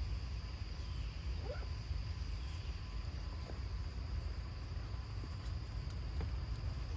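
Outdoor ambience: a steady low rumble with a thin, steady high insect drone, and a few faint, brief squeaks about a second and a half in and again later.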